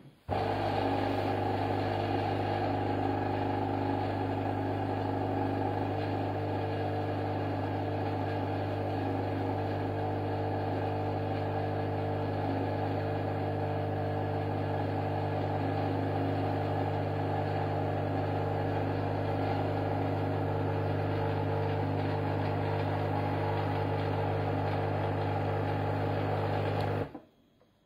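Krups Virtuoso XP442C espresso machine's 15-bar pump running steadily with a hum while it pulls espresso through a two-spout portafilter into two glasses. It starts at the very beginning and cuts off suddenly near the end, when the shot is finished.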